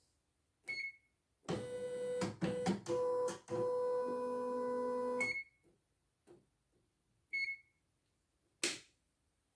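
CNY E900 computerized embroidery machine: its control panel gives short beeps at button presses, three times. Between about 1.5 and 5 seconds in, the embroidery unit's motors run with clicks and a steady whine as the hoop carriage moves into position. A sharp click comes near the end.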